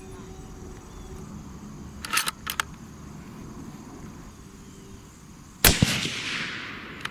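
A single suppressed rifle shot from a Savage Ultralite in 280 Ackley Improved fitted with a Liberty Infiniti X suppressor, firing a Barnes 140-grain TTSX handload. The shot is a sudden sharp report about five and a half seconds in, followed by an echo that dies away over about a second.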